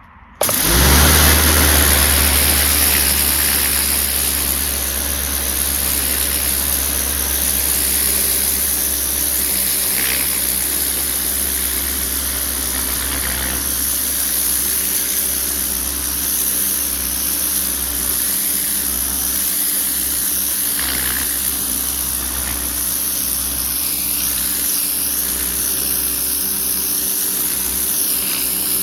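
A garden machine's motor running steadily and loudly, starting abruptly about half a second in, with a low hum and a bright hiss over it.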